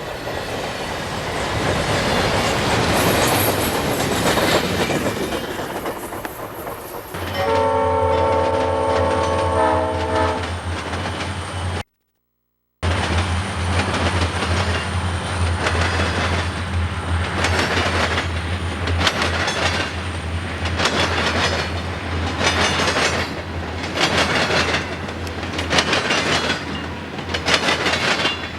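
Diesel freight train passing with wheel noise. About seven seconds in, the locomotive's air horn blows a chord for about three seconds over the steady engine drone. After a brief dropout, the engine drone goes on with wheels clicking over rail joints about once a second.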